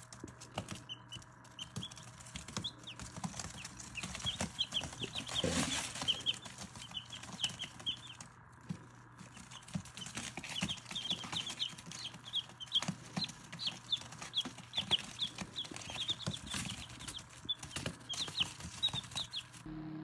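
Newly hatched chicks peeping, many short high peeps in quick runs, with scattered light taps and a faint steady low hum beneath.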